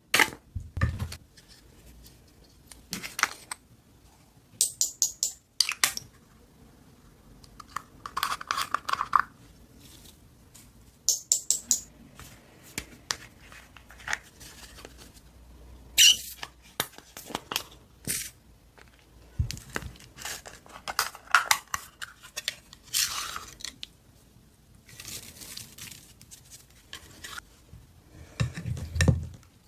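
Slime being handled close to the microphone, giving scattered crackles, pops and clicks with short pauses between them.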